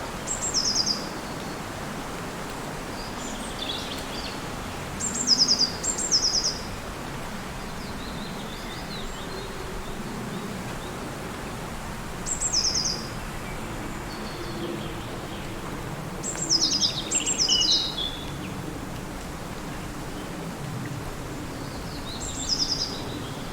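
Forest ambience: a steady windy hum under a songbird that repeats a short, high, quickly descending trilled phrase about seven times, sometimes twice in quick succession.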